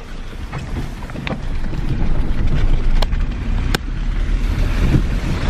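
Car interior noise while driving on a snowy road: steady low engine and tyre rumble with wind noise on the microphone, and two sharp clicks a little past halfway.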